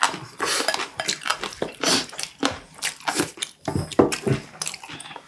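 Close-miked chewing of crunchy warty sea squirt (omandungi): a run of irregular crisp crunches and wet, squishy bites, the loudest about four seconds in.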